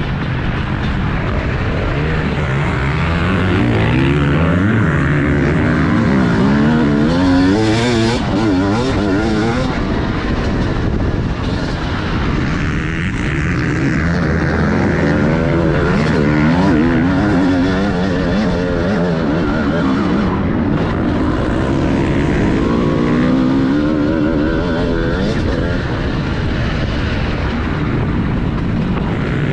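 On-board sound of a TM Racing 250 motocross bike's engine under race riding, its pitch rising and falling over and over as the rider opens and closes the throttle and shifts through the gears.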